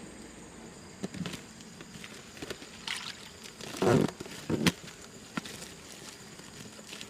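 A few irregular knocks and rustles from handling, the loudest a brief rustling scrape about four seconds in, over a steady faint high insect hum.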